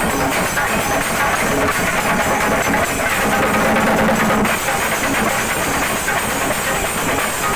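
A troupe of chenda drums beaten fast and hard with sticks, with cymbals clashing, in a dense, loud, continuous rhythm.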